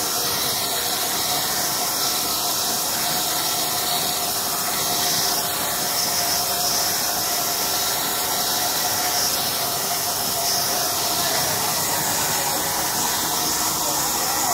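Large sawmill band saw ripping lengthwise through a long wooden log: a steady, loud hiss of the blade in the wood with a steady hum underneath.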